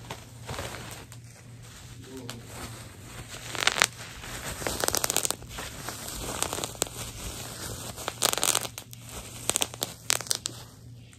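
Plastic wrapping and bubble wrap crinkling, crackling and tearing as an item is unwrapped and the wrapping is crumpled by hand, in irregular bursts, loudest about four and eight seconds in.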